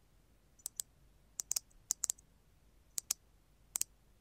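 AI-generated computer mouse click sound effect: a series of short, sharp clicks, most coming in quick pairs like a button's press and release, repeated about six times at uneven intervals.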